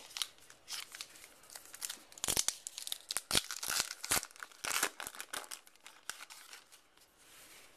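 A baseball card pack's wrapper crinkling and tearing open while the cards inside are handled: a quick run of crackles and snaps that dies down over the last second or two.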